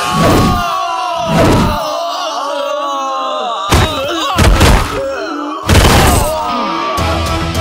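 Film fight-scene sound effects: five heavy impacts spread over about six seconds, with a wavering, held voice-like tone between them.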